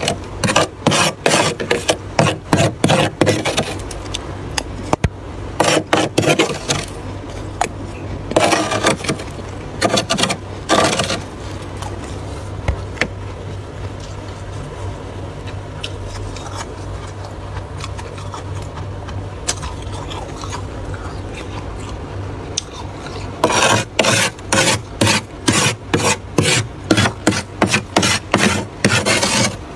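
Thick frost in a freezer being scraped in quick strokes, about three a second, for the first few seconds and again through the last six seconds, with only a few scattered scrapes in between. A steady low hum runs underneath.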